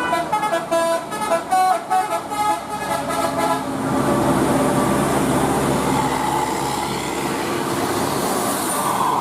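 Basuri multi-tone 'telolet' bus horn playing a quick melody of short stepped notes. About three and a half seconds in, it gives way to steady vehicle engine and road noise.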